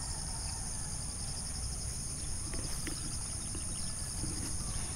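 Steady, high-pitched chorus of insects in the countryside, with a low rumble underneath.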